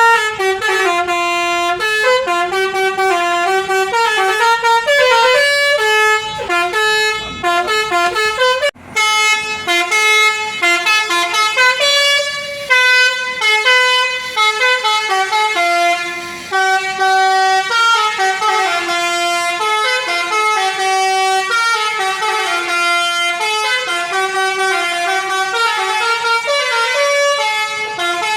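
Basuri V4 telolet horn on a tour bus playing a melody, its tones stepping from note to note almost without a break, with one short pause about nine seconds in.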